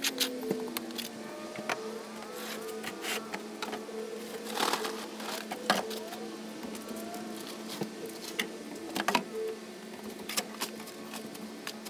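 Garden shovel scooping damp peat-and-perlite potting mix and dumping it into plastic nursery trays: irregular scrapes of the blade through the soil and knocks of the plastic trays, over a steady low hum.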